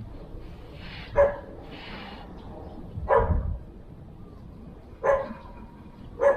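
Spotted doves cooing: short, husky calls repeated about every two seconds.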